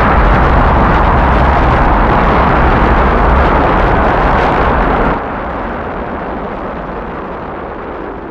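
Rocket engines firing at liftoff: a loud, deep, continuous rumble. About five seconds in it drops suddenly to a quieter, muffled rumble, the launch heard from far off.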